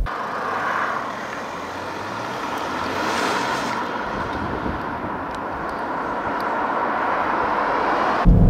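Mercedes GLB 220d diesel SUV driving past on the road, heard from outside: mostly tyre and road noise with little engine sound, loudest about three seconds in as it passes. More traffic approaches toward the end.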